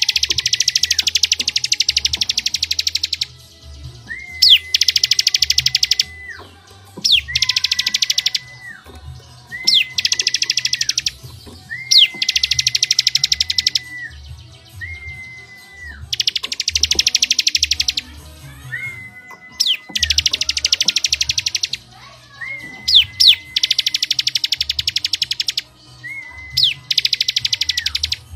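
Songbird song from a compilation of cucak cungkok, canary and ciblek: a phrase of a quick falling note, a held whistle, then a fast rapid-fire trill, repeated about every two to three seconds. A low rumble comes and goes underneath.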